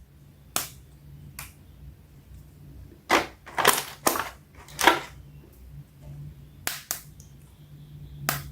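Irregular sharp clicks and crackles of hard plastic, about nine in all, from an action-figure toy and its packaging being handled, over a faint low hum.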